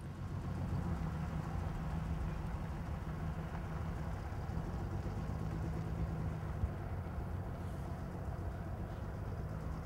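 Car engine running at idle: a steady low rumble.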